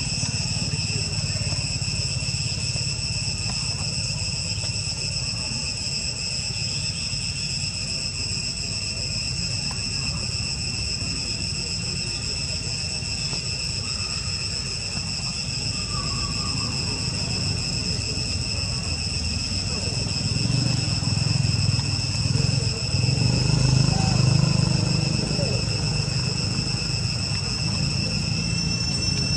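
Steady high-pitched insect chorus, an unbroken drone at several pitches at once, over a low rumble that swells about twenty seconds in.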